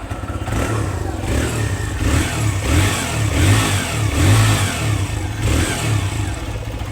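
TVS Raider 125's single-cylinder engine running and revved up and down a few times, with its new timing chain fitted in place of a very loose one. It runs without the noise the loose chain made.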